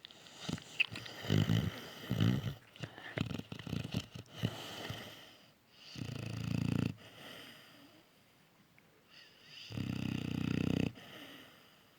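Cane Corso puppy snoring loudly in deep sleep. It begins with a run of short, irregular snores over the first five seconds, then gives two long buzzing snores about four seconds apart.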